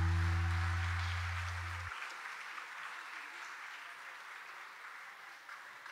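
The song's last held low note fades and cuts off abruptly about two seconds in, leaving an audience applauding.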